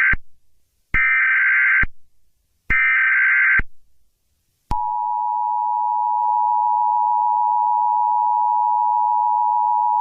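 Emergency Alert System broadcast tones: the last of three short screeching digital header bursts, each under a second, then about 4.7 s in the steady two-tone EAS attention signal (853 and 960 Hz) begins and holds.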